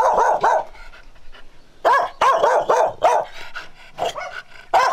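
Hunting dog barking in quick runs of several sharp barks, with breaks of about a second between runs.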